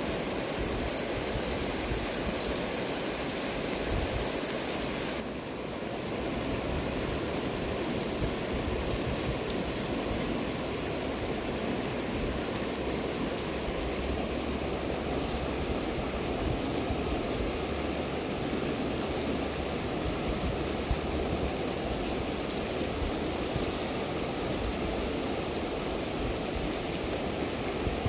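Steady rushing of a river flowing over stones, an even noise with no let-up; the thin top-end hiss drops away about five seconds in.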